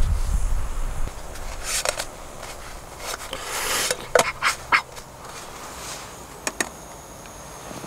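Mini naan breads being slid and turned in a non-stick frying pan on a camping gas stove: scraping and rubbing in the pan, with a quick run of sharp clicks and taps about four seconds in and two more near six and a half seconds. A low rumble in the first second.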